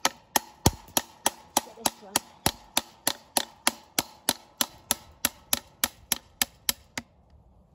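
A small hammer striking the back of fencing pliers in a steady run of about three sharp metal-on-metal blows a second, driving the pliers' pointed end under a fence staple in a wooden post to dig it out. The hammering stops about a second before the end.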